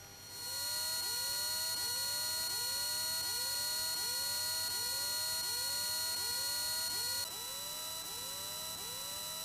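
Electrical whine in the aircraft's intercom audio: several steady high-pitched tones with a short rising chirp repeating about every two-thirds of a second. About seven seconds in the tones drop slightly in pitch and the whole sound gets a little quieter.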